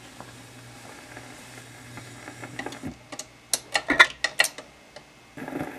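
RCA RP190 automatic 45 rpm record changer cycling to the next record over a steady low hum, with a run of sharp mechanical clicks and clatter that is loudest between about three and four and a half seconds in. A soft hiss starts near the end, as the stylus sets down on the record.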